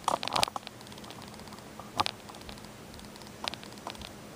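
Several light clicks and taps over a faint steady hum: a quick cluster at the start, a sharper single click about two seconds in, and a few softer clicks near the end.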